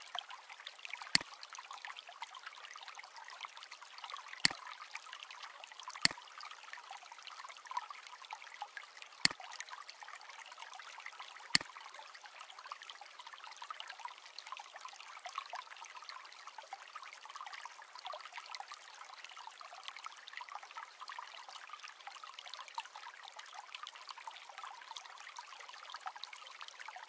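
Six sharp computer mouse clicks at uneven intervals over the first twelve seconds or so, over a steady hiss.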